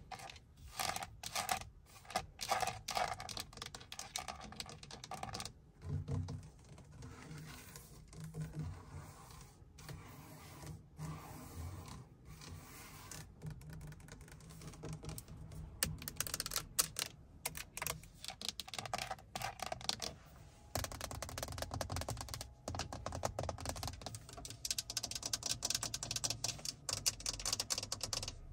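Long fingernails tapping and scratching quickly on a Mercedes-Benz's steering wheel hub and dashboard trim: dense runs of sharp clicks like typing, with short pauses between runs.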